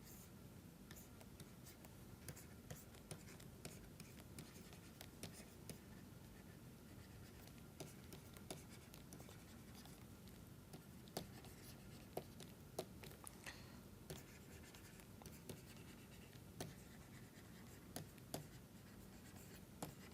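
Faint handwriting: light scratches and small taps of a pen or stylus moving over a writing surface, in irregular strokes over a quiet hiss.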